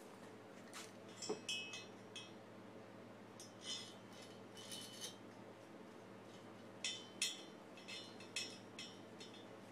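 Light metallic clinks and taps of metal hardware against the aluminium cylinder head of a Yamaha Towny engine during reassembly, coming in three scattered clusters. A faint steady hum sits underneath.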